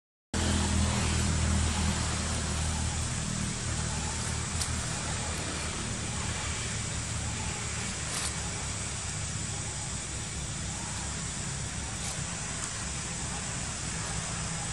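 Steady outdoor background noise with a low rumble, strongest in the first couple of seconds, and a few faint ticks.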